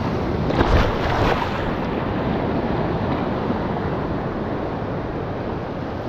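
Sea waves surging and washing on the shore, with wind buffeting the microphone; a louder wave surge comes about a second in.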